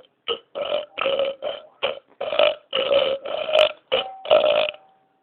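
Deliberate burps in quick succession, about ten in a row, some short and some drawn out, traded back and forth as a burping contest.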